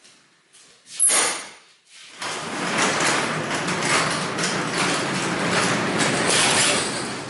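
A 16-valve EFI petrol engine with its throttle body removed is cranked briefly about a second in. It catches about two seconds in and runs loudly at full revs, easing off slightly near the end: with the throttle body off, nothing limits the air flow, so the engine races at full speed.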